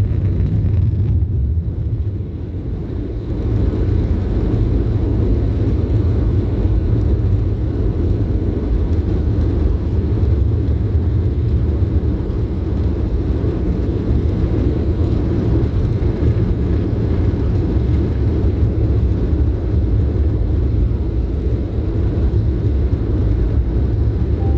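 Cabin noise of a Boeing 737 airliner during takeoff: a steady, loud low rumble of the jet engines and airframe. It dips briefly a couple of seconds in, then holds steady.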